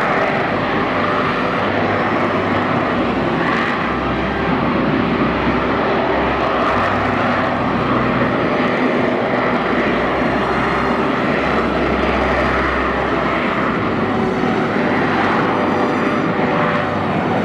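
AV-8B Harrier II's Rolls-Royce Pegasus turbofan at high thrust in slow jet-borne flight and a vertical climb: a loud, steady jet noise with a low rumble.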